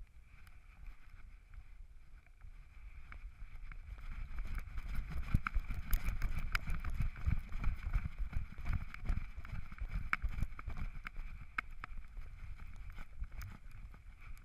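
A dog running through snow, heard from a GoPro Hero 3 strapped to its back: an uneven run of muffled thumps from its strides, with sharp knocks of the jostled camera. It grows louder about four seconds in, as the run speeds up.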